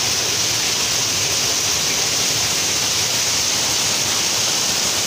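Steady, unbroken rushing noise, even in level and loudest in the upper range.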